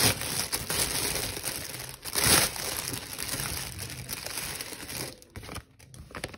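Plastic packaging crinkling as a printed paper sheet is pulled out of a plastic bag, loudest about two seconds in and quieter near the end.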